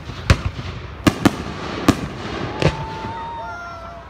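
Fireworks display: aerial shells bursting in sharp bangs, about five at irregular intervals, with a thin whistling tone about three seconds in.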